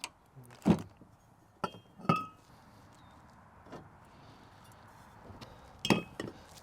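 Small metal parts and hand tools knocking and clinking while being handled, in about five separate hits: a dull knock under a second in, a ringing metallic clink about two seconds in, and another clink near the end.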